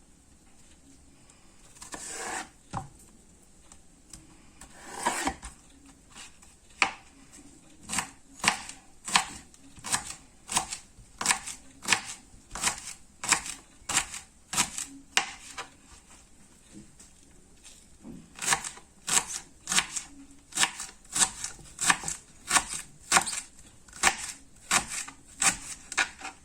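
Knife chopping food, a steady run of sharp cuts at about one and a half a second with a short pause partway through, after a couple of softer scraping or handling sounds near the start.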